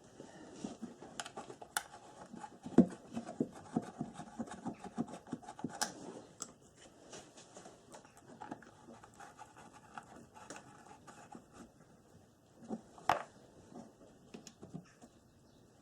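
Plastic body panel being fitted back onto a quad bike: irregular clicks, knocks and scraping as it is handled and pushed into place, with a sharp knock about three seconds in and another about thirteen seconds in.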